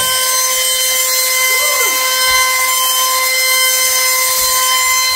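Sharper Image Gravity Rover wall-climbing car's suction fan running, a loud steady whine over a rushing hiss, as the car drives up a wall.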